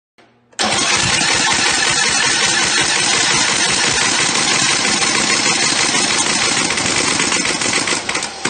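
Single-cylinder four-stroke camless engine, converted to port fuel injection with electronically controlled valves, running with its valve timing set at a 10-degree offset. It starts abruptly about half a second in, runs loud and steady, and drops off near the end.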